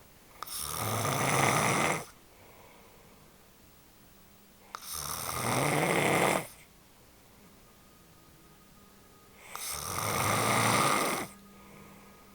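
A woman snoring in her sleep: three loud snores about four and a half seconds apart, each swelling over about a second and a half and then cutting off sharply, with quiet breathing between.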